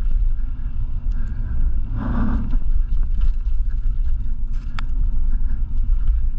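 Mountain bike descending a dirt forest singletrack: a steady low rumble of wind and tyres on the trail, with scattered rattles and clicks from the bike.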